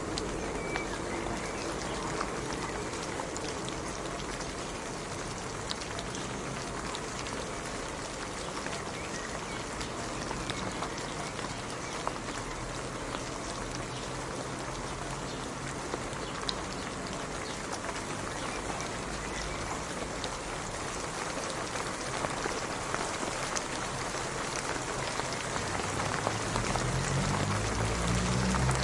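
Steady rain falling: a dense hiss with scattered sharp drop ticks. A low rumble builds in the last few seconds.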